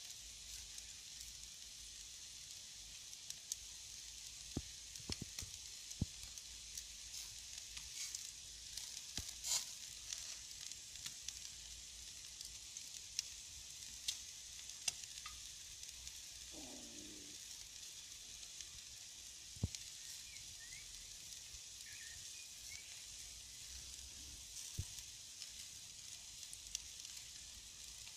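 Meat skewers sizzling in a wire grill basket over charcoal embers: a steady hiss with scattered sharp crackles and pops.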